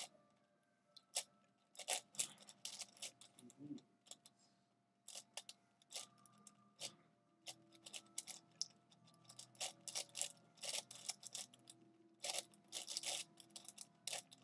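V-Cube 7x7 puzzle being turned rapidly in a speedsolve: quick irregular clusters of plastic clicks and clacks as its layers are turned, broken by a short pause a few seconds in.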